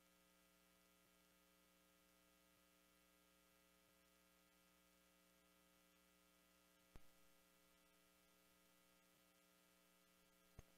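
Near silence with a faint, steady electrical hum, and one faint click about seven seconds in.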